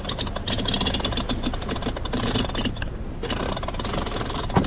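Self-tailing sheet winch being cranked with a winch handle to trim in the headsail sheet: a rapid run of ratcheting pawl clicks, with a brief break about three seconds in.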